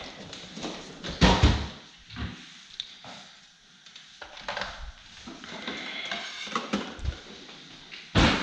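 Kitchenware being handled: rummaging in a drawer of plastic containers and setting a plate on a kitchen scale, heard as a series of knocks and clatters with quieter rustling between them, loudest about a second in and near the end.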